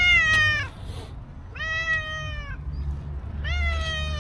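Black-and-white domestic cat meowing three times, about a second and a half apart, each meow high-pitched and dropping a little at the end.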